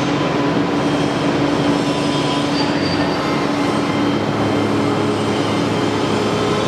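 CNC router machine running: a steady motor whine over a broad mechanical hiss, with a lower hum coming in about halfway through.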